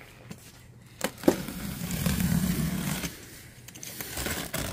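Box cutter slicing through the packing tape on a cardboard box: a couple of sharp clicks about a second in, then about two seconds of scraping and crackling of blade, tape and cardboard, with more scraping near the end.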